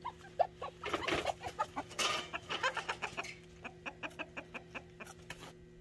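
Hens clucking: a rapid run of short clucks that grows fainter toward the end, with a brief louder rustle about two seconds in.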